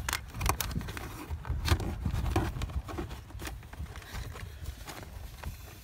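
Irregular small clicks and scrapes of fingers pushing a thin LED-strip wire into the gap under a plastic footwell trim panel.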